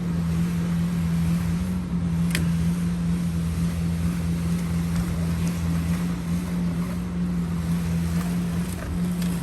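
An engine running steadily at a constant speed, with a single sharp click about two seconds in.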